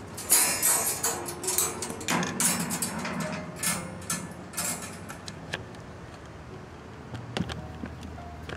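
Rattling, clicking and rustling of a white wire pet cage being handled, dense in the first few seconds and then thinning out, with one more sharp click near the end.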